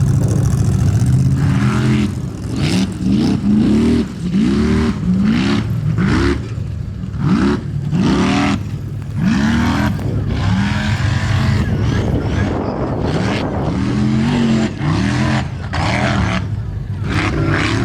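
A Formula Offroad race car's engine revving hard in repeated bursts, the pitch shooting up and dropping back roughly once a second as the throttle is worked.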